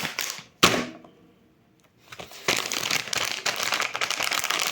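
A sharp tap about half a second in, then from about two seconds in the steady crinkling of a plastic toy packet being handled.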